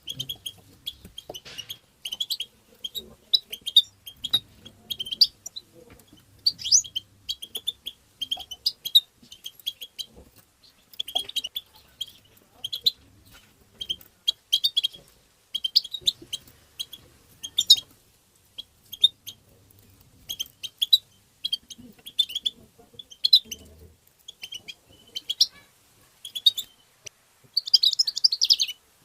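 European goldfinch twittering: a rapid stream of short, high chirps with a denser flurry near the end.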